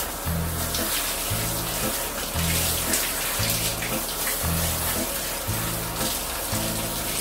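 Handheld shower head spraying water onto a wet Siberian husky's coat: a steady hiss of running water. Background music with a low, regular beat about once a second plays under it.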